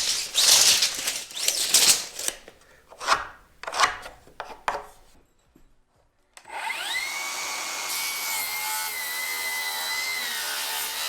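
Lumber being handled, with irregular scrapes and knocks for about five seconds. After a short gap a power saw spins up, its whine rising, and then runs steadily as it cuts through the board.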